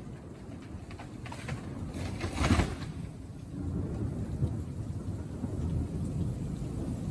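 Thunder rumbling low and steadily over falling rain, swelling louder about two and a half seconds in.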